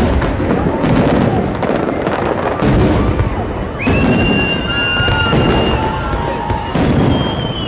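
Fireworks display: aerial shells bursting one after another with continuous bangs and crackle. From about four seconds in, a high steady whistle sounds over the bursts for a couple of seconds, and another comes near the end.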